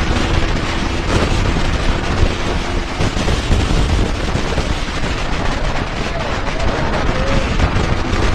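Motorcycle running at speed, with heavy wind buffeting on the microphone and rapid crackling throughout.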